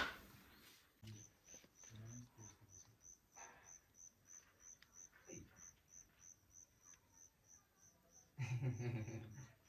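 An insect chirping steadily, about three short high chirps a second. Near the end it is joined by a louder stretch of low voices.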